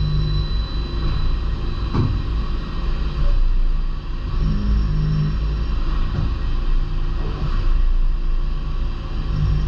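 DMG Mori NLX2500 CNC turn-mill lathe running as it machines a small part: a steady low machine hum, with a brief sharp knock about two seconds in and a short change in tone around the middle.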